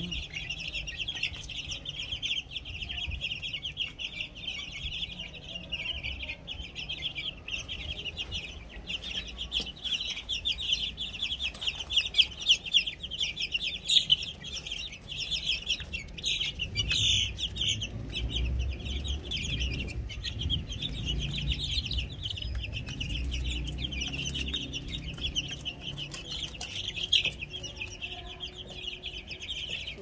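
A flock of Plymouth Rock chicks peeping continuously, many short high cheeps overlapping one another.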